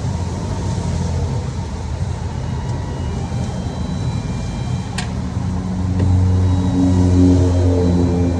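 A vehicle engine running steadily, with a sharp click about five seconds in; from about six seconds the engine note grows louder.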